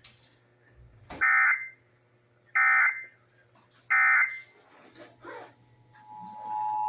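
Emergency Alert System end-of-message code: three short bursts of buzzy, warbling digital data tones, about 1.3 s apart, marking the close of the alert. Near the end a softer steady two-tone sound begins, the EAS attention signal that opens the next test.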